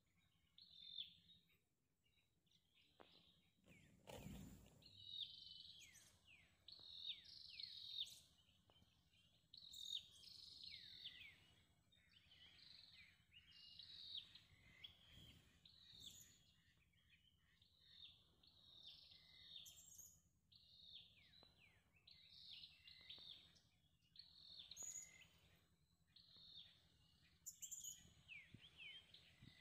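Faint birdsong: short chirping phrases repeated one after another, with a single thump about four seconds in.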